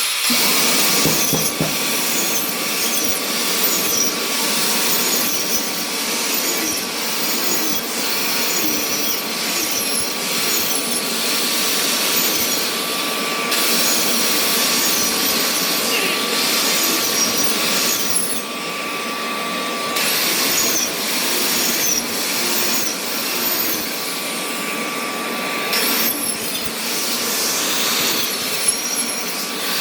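Electric power tool cutting into wooden flooring, running steadily with a thin constant whine through the noise. The sound changes abruptly a few times.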